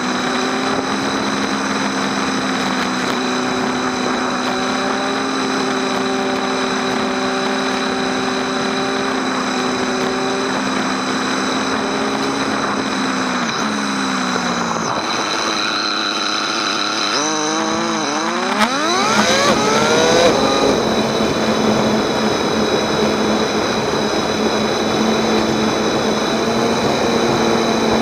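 Motorcycle engine at a steady cruise under a rush of wind noise. About halfway through the note falls away as the throttle closes, then climbs sharply as the bike accelerates again, and it settles into a louder steady cruise.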